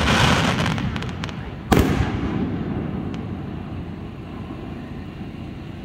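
Aerial fireworks bursting: a few sharp crackles from a shell opening, then a second loud bang a little under two seconds in that fades away over a couple of seconds.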